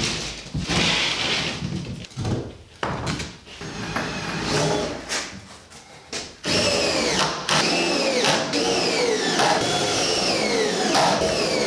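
Cordless drill driving screws through an OSB sheathing panel into a wooden frame. From about halfway in it runs in short, repeated bursts whose pitch drops each time. Before that there are knocks from the panel being handled.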